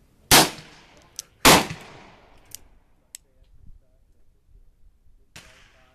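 Two sharp shots from a French ordnance revolver about a second apart, each with a short ringing tail, then small clicks and a third, fainter bang near the end. The reports are light, which the shooters take for weak, suspect cartridges: 'almost sounds like it's just a primer'.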